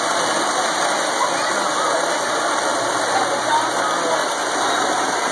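Model trains running on the layout's track: a steady rolling whir with no breaks, with faint voices underneath.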